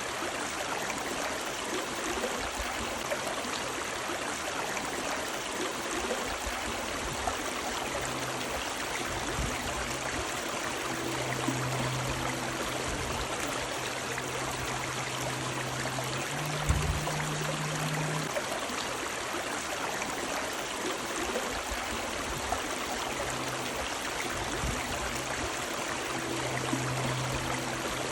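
River water running steadily over stones, a constant rushing and babbling. A faint low hum comes and goes in the background, and a single knock sounds about two-thirds of the way through.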